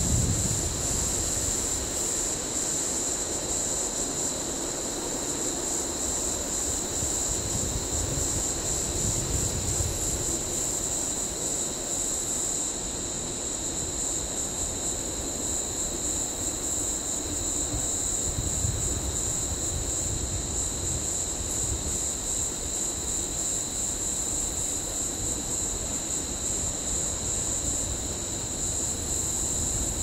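Steady insect chorus: a continuous high-pitched trill with a fainter, lower whine, over a low rumble.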